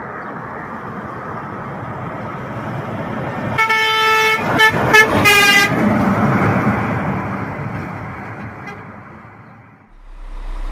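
A loaded semi-truck with a flatbed trailer passing close by, its road noise swelling and then fading away. As it goes by it sounds its horn in a quick run of short blasts, the last one held a little longer.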